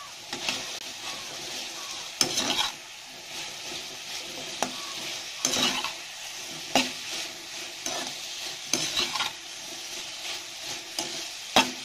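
A flat metal spatula scraping and turning cauliflower florets around a kadai in irregular strokes, over a steady sizzle of the florets frying in oil with spice powders.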